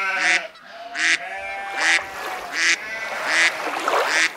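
Waterfowl calling repeatedly: short calls about every three-quarters of a second, with longer pitched calls between them.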